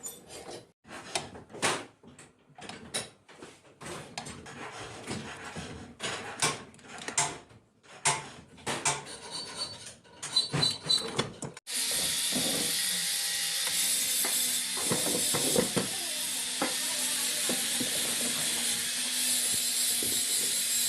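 Workshop hand work on parts: irregular scraping, rubbing and knocking. About twelve seconds in, a steady loud hiss starts suddenly and continues.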